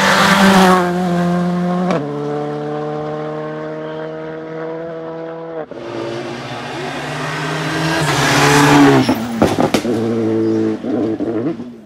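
Rally cars racing past at full throttle: one passes close at the start, its engine held at high revs with the note stepping down twice as it pulls away, then a second car passes close about eight seconds in, followed by a quick series of sharp cracks before its engine fades.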